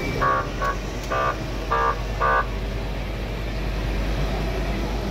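Vehicle horn giving five short toots in about two seconds, over the low, steady rumble of idling truck engines.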